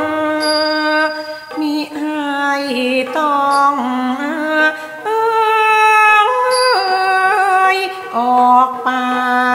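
Thai classical singing: a solo voice holding long notes that waver and glide from pitch to pitch, with no percussion strokes heard.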